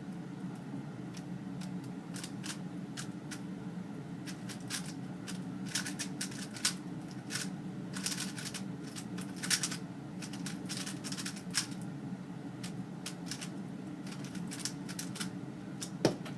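Plastic speedcube layers being turned fast by hand, an irregular run of sharp clicks and rattles, with one louder click near the end.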